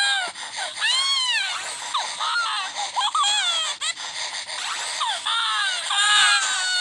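Several overlapping high-pitched animal cries, each call arching up and then down in pitch, following one another with barely a break.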